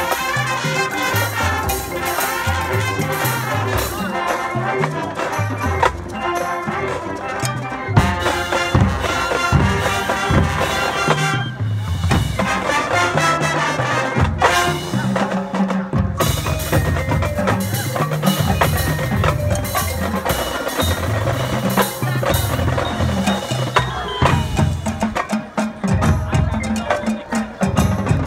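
High school marching band playing its field show: winds with a drumline, and marimbas and other mallet percussion in the front ensemble.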